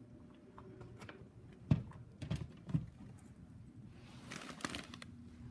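A few soft thumps, then rustling about four seconds in, as a small dog brushes against wrapped presents and a paper gift bag.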